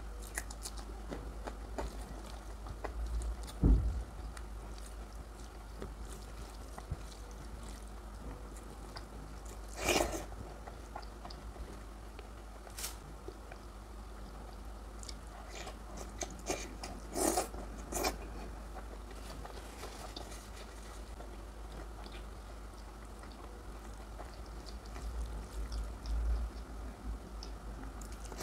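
Close-miked eating sounds of curry and rice: steady chewing and wet mouth clicks, with a few louder crunching bites spread through.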